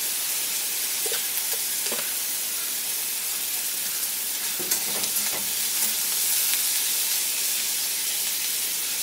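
Sliced onion and green chillies sizzling in mustard oil in a kadai: a steady frying hiss with a few faint clicks.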